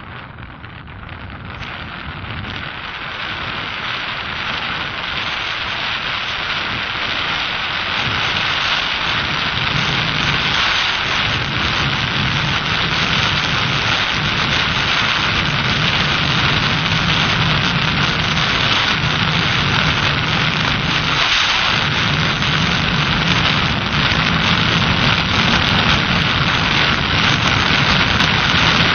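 Heavy wind noise blasting the microphone of a camera on a motorcycle moving at speed. It rises over the first several seconds, then holds steady.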